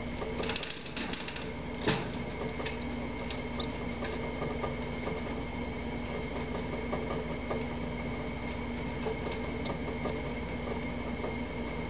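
Valley (California) quail chick giving short, high peeps, a few around two to three seconds in and another run around eight to ten seconds, with a few soft clicks about a second in, over a steady hum.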